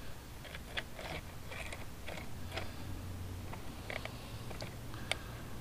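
An inspection scope camera being pushed among concrete and stone, giving scattered small crunching scrapes and clicks, the sharpest about five seconds in, over a low steady hum.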